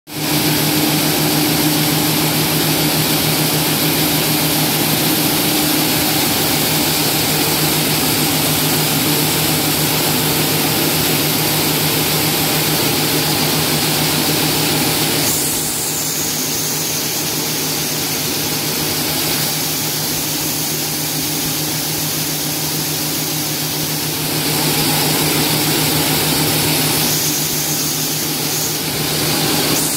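Grain destoner machine running: a steady motor hum under a loud hiss of grain moving across its deck. The hiss eases about halfway through and grows again a few seconds before the end.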